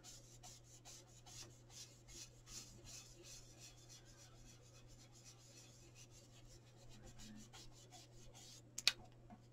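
Faint rubbing of an ink blending brush swept and dabbed over cardstock along a torn-paper mask, in many quick, light strokes. A sharp click comes near the end.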